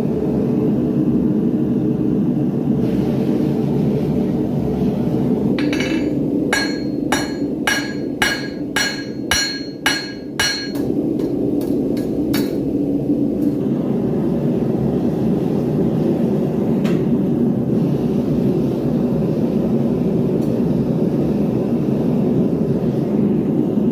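Steady roar of a gas forge's venturi burners. Midway, a run of about a dozen ringing hammer blows on metal, roughly two a second, with one last blow a moment later.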